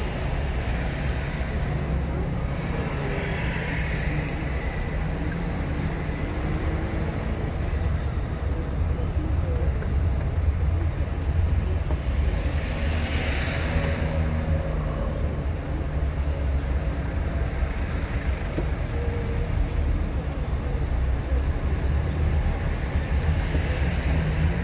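Steady low engine and road rumble of a car driving through city streets. Two louder swells of traffic noise come about three and thirteen seconds in.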